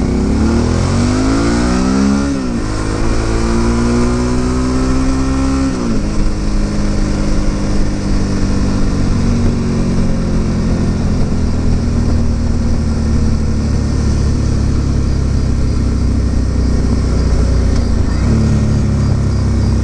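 Suzuki V-Strom 650's V-twin engine accelerating through the gears: its pitch rises and drops at an upshift about two seconds in and again about six seconds in. It then runs at a steady cruise under a constant rush of road noise.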